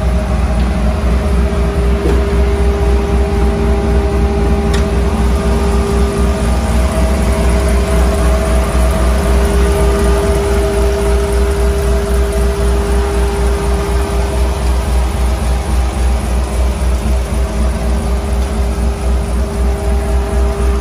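Supercharged V8 in a custom 1968 Chevrolet C10 pickup idling steadily, with a low even pulse and a steady whine over it.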